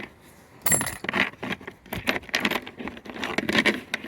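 Metal hand tools and parts clinking and clattering as they are handled and shifted around. A string of sharp metallic clacks starts about half a second in.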